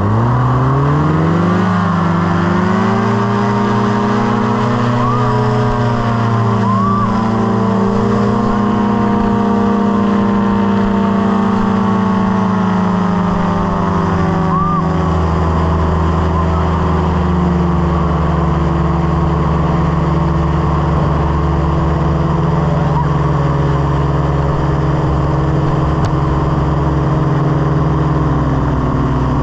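Small propeller aircraft's piston engine revving up quickly to high power, then running steadily with a slight easing of power about halfway through.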